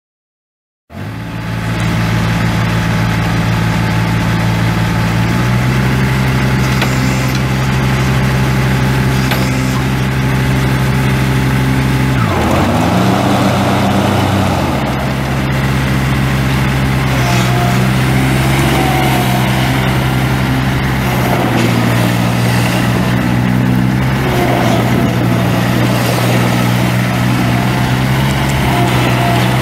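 Kubota D782 three-cylinder diesel engine of a ZD221 zero-turn mower running steadily. Its speed steps up about five seconds in, then dips briefly and picks back up around twelve seconds in.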